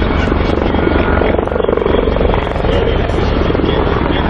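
Military attack helicopter flying past, its main rotor beating rapidly and steadily over loud turbine noise.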